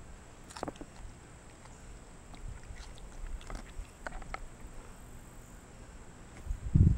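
Capuchin monkey eating banana pepper: a few faint, short clicks and smacks from its mouth scattered over several seconds. Near the end comes a sudden loud low thump.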